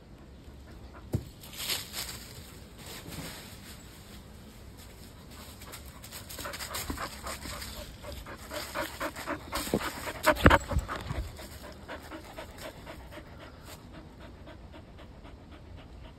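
Standard poodle panting quickly and rhythmically. A few louder thumps and rustles come about two-thirds of the way in.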